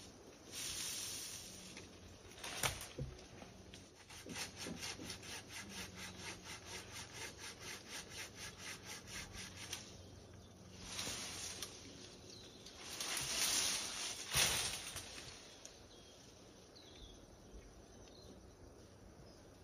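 Hand saw cutting through a shrub branch in quick, even strokes, about three a second, followed by a few longer scraping swells that die down near the end.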